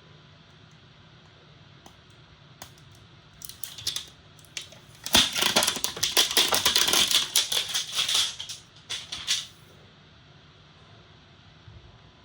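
Laptop packaging being handled and unwrapped: a few light clicks, then several seconds of dense rustling and crinkling that stops about nine and a half seconds in.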